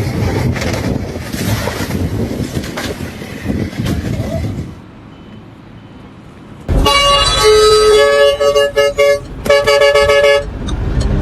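Vehicle horn honking in a string of short blasts at two or more pitches, starting about two-thirds of the way in. Before it comes several seconds of rough, noisy rattling, then a brief lull.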